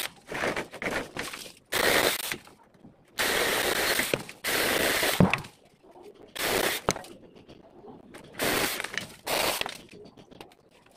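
Cordless battery-powered mini chainsaw cutting tree branches, run in short trigger bursts, about seven of them, each under a second or so, with quiet gaps between. A sharp crack comes about five seconds in.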